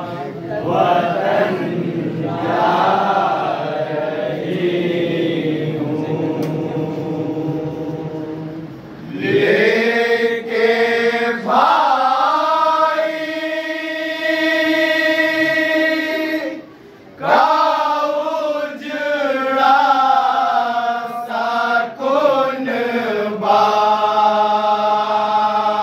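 A group of men chanting a noha, an Urdu mourning lament, together in unison without instruments. They hold long notes and break off briefly about two-thirds of the way through.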